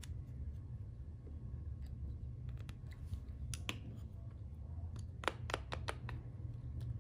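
Scattered sharp plastic clicks and taps from a GoPro Hero10 Black action camera and its buckle mount being handled and set on a table, the loudest about five seconds in, over a steady low hum.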